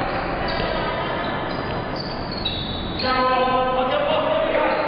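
Basketball game noise in a gym: players moving on the court and general hubbub, with a held shout from one or more voices starting about three seconds in.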